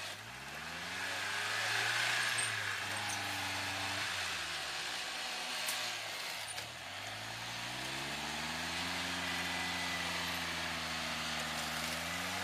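Off-road 4x4's engine held at raised revs while its bumper winch pulls it forward, the engine note climbing about half a second in, sagging briefly around six seconds, then climbing again and holding.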